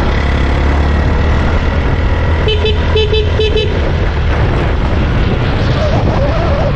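A vehicle engine running with a steady low rumble while moving off, and a vehicle horn tapped in a quick string of short toots about two and a half seconds in, a farewell honk.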